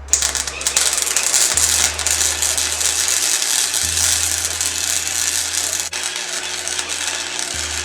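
Arc welder crackling steadily while welding a nut onto a broken exhaust stud in a cylinder head to extract it. The crackle starts abruptly and breaks off for an instant about six seconds in.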